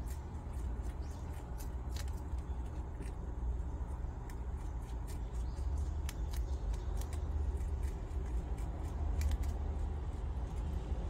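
A prairie dog crunching and gnawing on watermelon rind: quick, irregular crisp crunches with pauses between bites, over a steady low hum.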